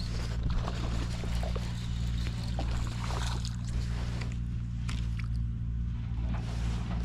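A steady low mechanical drone, like a running engine, with scattered short clicks and light splashy noises over it.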